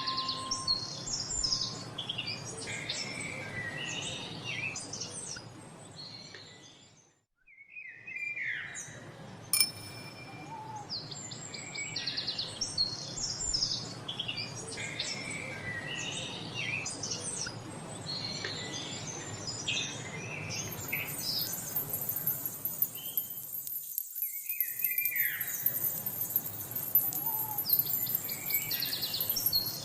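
A dense chorus of many songbirds chirping and trilling in quick, overlapping calls. The chorus dips to near silence twice, about 7 s and 24 s in, then comes back; a sharp click sounds about 10 s in, and a high hiss joins about two-thirds of the way through.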